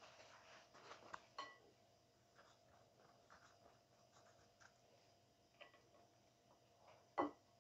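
Near silence with faint, scattered clicks and taps of kitchen handling, then one sharper knock near the end.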